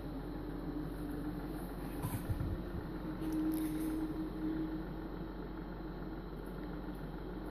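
Steady low mechanical hum of room tone, with a few soft low knocks about two seconds in.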